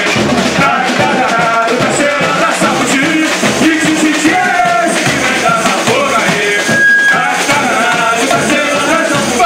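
Samba bateria playing live: surdo bass drums, snare drums and other hand percussion keep a dense, driving rhythm, with singing over it.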